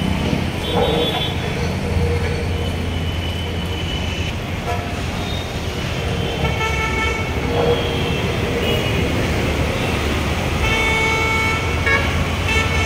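Busy city traffic at a junction: scooter, motorcycle and car engines running under a steady low rumble, with vehicle horns honking several times, the longest honks about six to eight seconds in and near the end.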